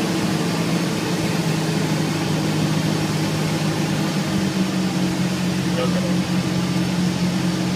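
Cessna 172S's four-cylinder Lycoming IO-360 engine and propeller droning steadily, heard inside the cockpit, at the reduced power of a final approach to landing.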